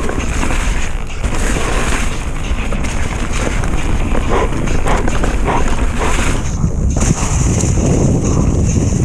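Wind buffeting the microphone on a fast downhill run, over a steady rolling rumble with scattered knocks and rattles. The rumble grows heavier about seven seconds in.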